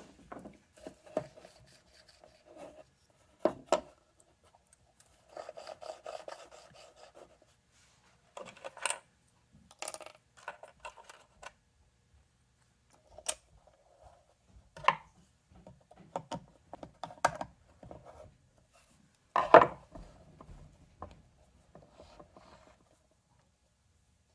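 Small plastic electronics parts being handled and fitted back together: scattered clicks, taps and short rubbing scrapes at irregular intervals, with a few sharper knocks, the loudest about three-quarters of the way through.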